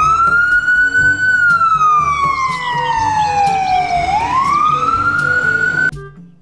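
Ambulance siren on wail: the pitch rises, falls slowly over about three seconds, then rises again and cuts off near the end.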